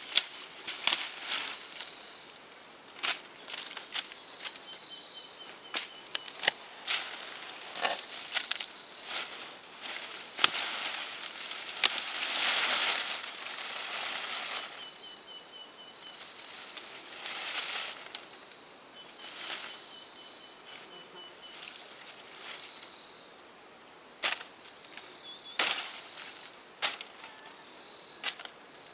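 Steady, high-pitched insect chorus, with a fainter pulsing trill that comes and goes three times. Scattered sharp clicks and knocks are the loudest sounds, and a brief rustling swell comes about twelve seconds in.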